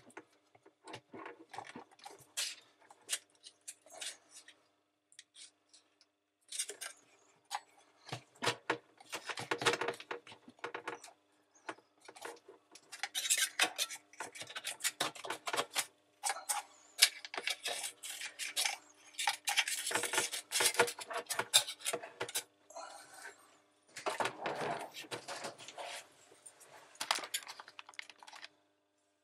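Hands working a replacement rubber sump seal into the plastic sump of a dishwasher's stainless steel tub: irregular bursts of clicking, scraping and light clattering against metal and plastic, broken by short pauses.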